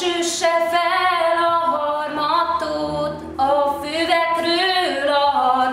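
A woman singing without accompaniment in long, wavering held notes, starting a new phrase about three and a half seconds in.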